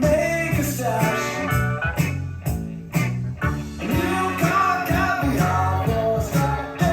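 A rock song with a sung vocal and guitar, played back from a test recording made on a Sony TC-FX707R cassette deck.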